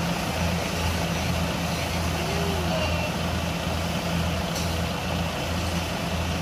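Kubota DC70 combine harvester's diesel engine running steadily under load, a continuous drone with an even low pulse over mechanical clatter.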